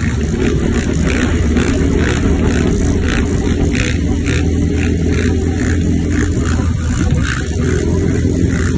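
Honda sport quad's engine running hard at road speed, mixed with the engine of the bike the footage is shot from and wind rushing over the microphone.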